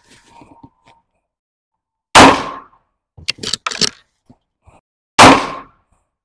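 Two shots from a scoped Marlin 336 lever-action rifle in .30-30 Winchester, about three seconds apart, each ending in a short echo. Between them come a few quick metallic clacks as the lever is worked to eject the spent case and chamber the next round.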